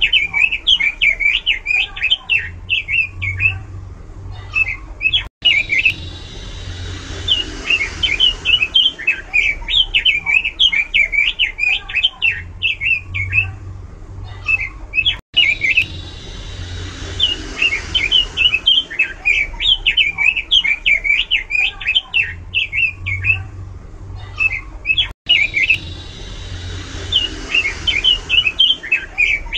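Red-billed leiothrix (Pekin robin) singing loudly in runs of rapid, sharp, high notes several seconds long, with short pauses between. The same stretch of song repeats about every ten seconds.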